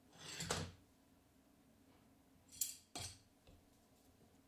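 Faint scraping of a small hand tool drawn against a steel straightedge on a thin aluminium sheet. One longer stroke comes right at the start and a short one about two and a half seconds in, followed by a sharp metallic click.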